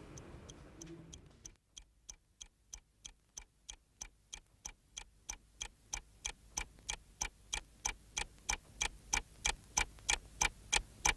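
Steady clock-like ticking, about three ticks a second, growing steadily louder.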